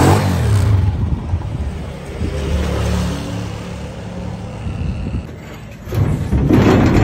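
Honda CG125's single-cylinder four-stroke engine running at idle just after a cold start, which the rider says needs the choke. It is louder at first, settles through the middle, and swells again near the end.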